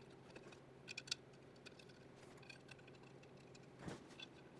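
Near silence with a few faint metal clicks and taps as a clutch pressure plate is handled and seated onto the flywheel's locating dowels: two clicks close together about a second in, another near the end.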